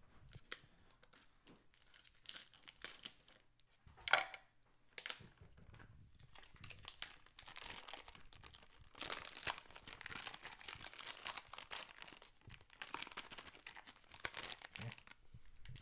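Plastic ground-meat wrapper being snipped with kitchen scissors, then crinkling and rustling as it is squeezed to push the meat out. There is one sharp crackle about four seconds in, followed by long stretches of rustling.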